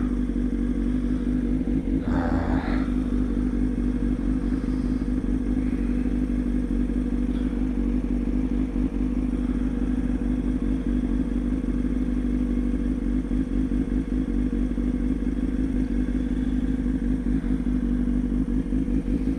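Kawasaki ZX-6R 636's inline-four engine running at a steady cruising pace, its note holding even with no revving up or down.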